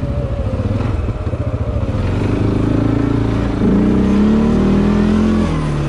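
CFMoto 450L ATV engine running at low revs, then revving up about three and a half seconds in and holding higher revs before easing off near the end.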